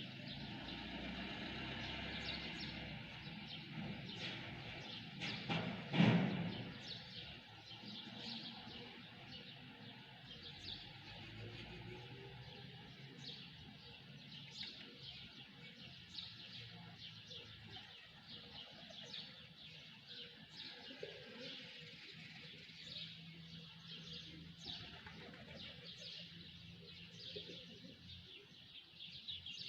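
Small birds chirping continuously, many short overlapping chirps, with one brief louder noise about six seconds in.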